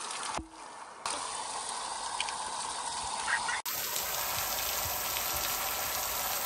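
Water jetting up from a broken water pipe under the road and splashing down onto wet concrete: a steady rushing spray.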